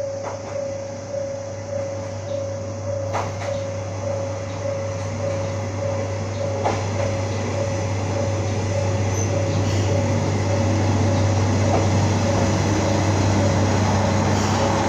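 Kanto Railway KiHa 5000 diesel railcar approaching and pulling into the station, its low engine rumble growing steadily louder. A single-pitched ringing pulses at an even rate throughout.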